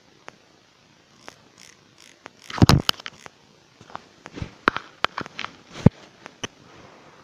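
Fingers flicking along the teeth of a plastic comb: a series of sharp clicks and short rattles, loudest in a burst about two and a half seconds in.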